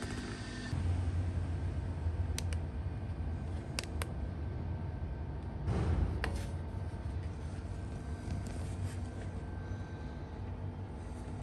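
CYCPLUS A5 cordless electric air inflator's small compressor running with a steady low hum, with a few sharp clicks over it.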